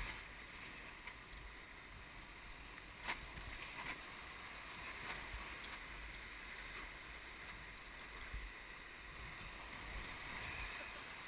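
Churning whitewater rapids rushing past a raft: a steady hiss of broken water, with a few short knocks, the clearest about three seconds in.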